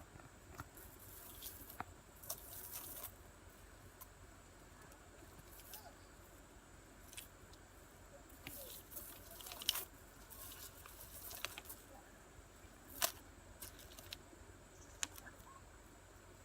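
Faint, scattered rustles and sharp clicks, about a dozen short ones spread irregularly.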